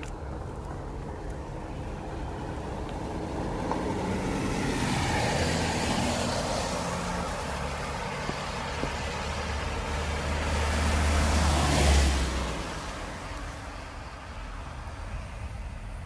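Car and truck driving past on a wet road, their tyres hissing on the wet tarmac under a low engine rumble. The sound swells as they come close, is loudest as one passes close by about twelve seconds in, then fades.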